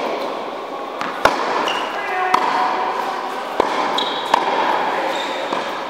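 Tennis rally on an indoor hard court: a tennis ball struck by racket strings and bouncing, four sharp pops about a second apart.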